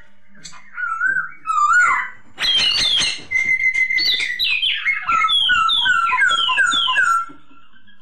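Black-throated laughingthrush singing: wavering whistled notes, then loud slurred phrases and a quick run of about five falling whistles that stops about seven seconds in.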